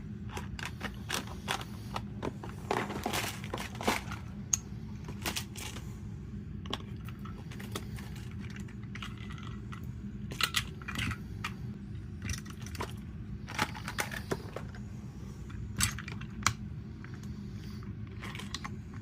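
Small hard clicks and clacks, irregular and scattered, of a watch case-back press and its interchangeable nylon dies being handled and swapped, over a steady low hum.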